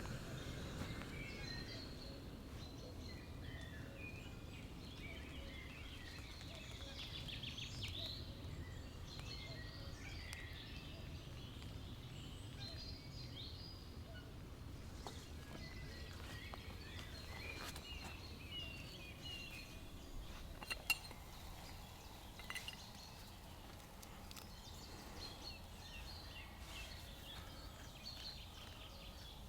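Quiet woodland ambience: scattered short bird calls over a faint low rumble, with one sharp click a little past the middle.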